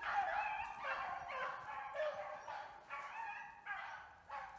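A pack of beagles baying as they run a snowshoe hare, several voices overlapping in repeated drawn-out bays that grow fainter near the end.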